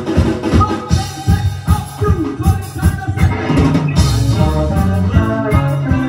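A live band playing a synth-pop/new-wave song: a steady drum beat with electric guitar, accordion and melodica. About three seconds in, a sustained low bass part comes in and the music becomes fuller and steadier in level.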